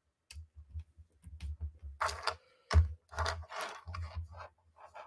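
Irregular clicking and tapping on a laptop, with brief rustling handling noise and low bumps picked up by a desk microphone.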